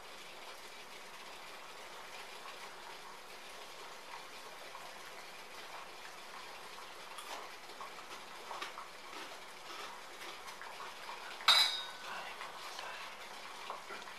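Water at a rolling boil in a small stainless-steel pot on a gas burner, bubbling steadily with small ticks. About eleven and a half seconds in there is one sharp, ringing metallic clink.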